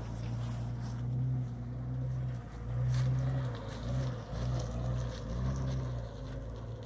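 Stock Jeep Grand Cherokee's engine pulling the SUV up a dirt trail, a low steady drone that swells and eases several times.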